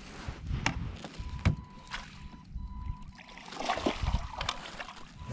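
Hooked bass thrashing and splashing at the surface beside a kayak, loudest about three and a half to four and a half seconds in, after a few sharp knocks in the first two seconds.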